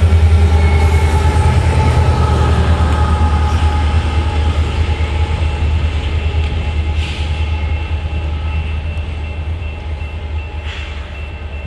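Union Pacific GE Tier 4 GEVO diesel locomotive, the train's rear remote distributed-power unit, passing with its engine running at a low steady hum over the rumble of wheels on rail. The sound fades steadily as the end of the train pulls away, leaving a thin high steady tone.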